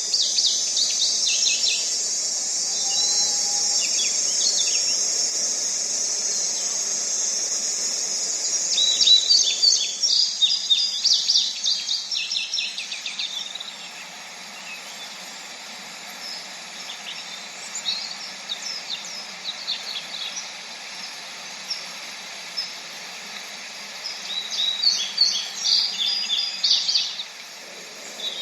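Birds chirping in rapid bursts over a steady high-pitched hiss, with three clusters of chirps. The hiss drops quieter about halfway through.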